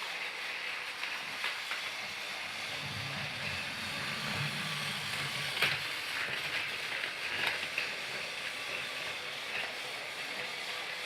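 Motorized Thomas the Tank Engine toy train running: a steady hiss with scattered clicks, and a low hum joining for a couple of seconds in the middle.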